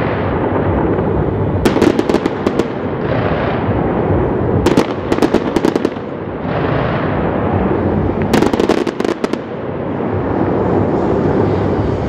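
Fireworks display: aerial shells booming in a continuous heavy rumble, with three bursts of rapid sharp crackling cracks about two, five and eight and a half seconds in.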